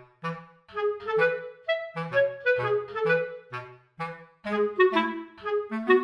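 Background music: a bouncy melody of short, quickly decaying notes over a bass line.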